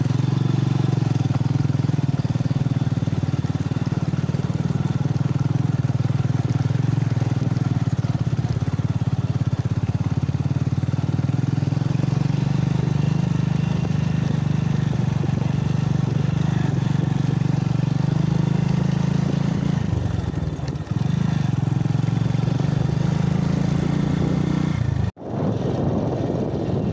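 Motorcycle engine running at a steady note while being ridden. About twenty seconds in, the note drops and picks up again. Shortly before the end the sound cuts out abruptly for an instant, then the engine resumes.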